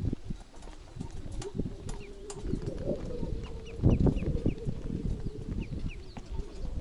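Footsteps knocking on the loose wooden planks of a worn suspension footbridge as someone walks across it, with a heavier clatter about four seconds in and a faint steady hum underneath. Short high bird chirps repeat through the middle.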